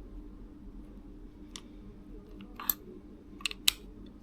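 A few light clicks and taps from a small hand tool and the red dot sight as its mounting screws are tightened, two of them close together near the end.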